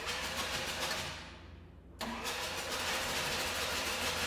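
Electric starter cranking the John Deere 35G's Yanmar diesel engine with its glow plugs removed, to blow water out of the cylinders through the glow plug holes. There is a short bump that winds down, then about two seconds in the starter is held and the engine turns over steadily with an even pulse, without firing.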